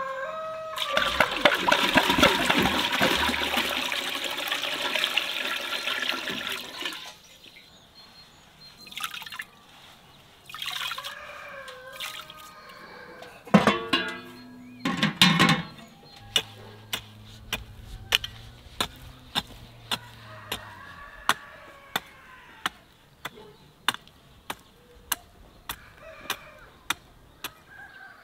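Water poured from a metal jug into a large aluminium cooking pot, a loud rush for about six seconds. A few splashes and clatters follow, then a steady ticking about one and a half times a second.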